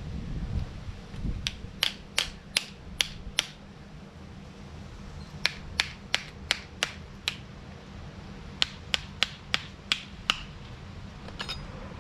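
Shell of a cooked mud crab being cracked open, sharp cracks in three quick runs of about six each, over a low steady rumble.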